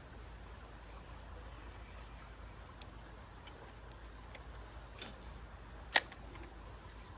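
A single sharp click about six seconds in, just after a brief hiss, with a few faint ticks earlier over steady low background noise.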